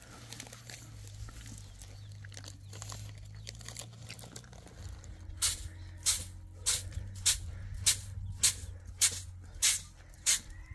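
Short straw hand broom sweeping a cement yard: about halfway in, a steady run of brisk swishes begins, roughly one stroke every 0.6 s, about nine in all.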